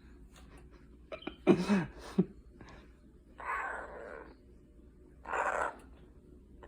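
A pet parrot making harsh, raspy growl-like calls three times, the loudest about a second and a half in: defensive sounds over food it won't share.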